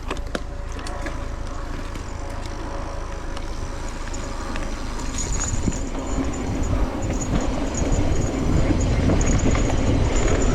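Riding noise from an electric mountain bike on a trail: wind buffeting the microphone and tyres rumbling, with scattered clicks and rattles. It grows louder after about six seconds, and a thin high whine comes and goes in the second half.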